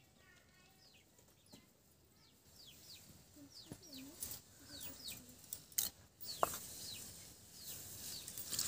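Chickens: chicks peeping in short, high, falling peeps repeated all through, with a few low hen clucks. A sharp metallic clink comes about six seconds in.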